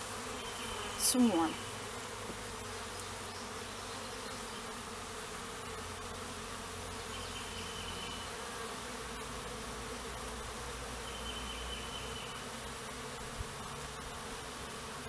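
A swarm of honeybees buzzing, a steady, unbroken hum.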